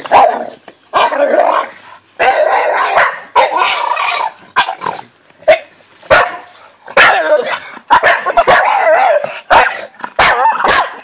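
Staffordshire bull terrier yipping, barking and whining excitedly in repeated bursts about a second long, with sharp clicks in between.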